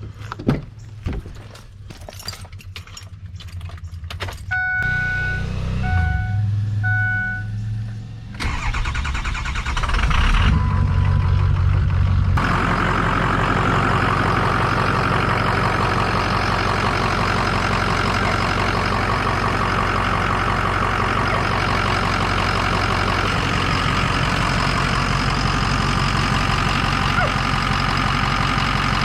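Ford 6.0 Powerstroke V8 turbodiesel in a 2006 F-350 being started after an oil change so the new oil circulates. First come a few knocks, then the dashboard chimes three times. The engine cranks, catches about twelve seconds in, and settles into a steady idle.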